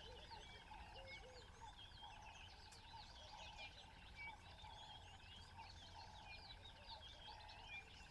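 Faint natural ambience of many small birds chirping and twittering, over a steady pulsing hum and a low rumble.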